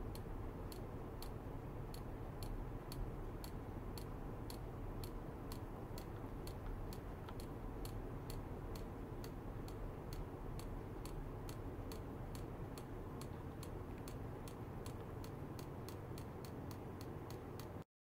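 Regular sharp ticking, a little over two ticks a second, starting just under a second in, over a steady low hum; all sound cuts off abruptly just before the end.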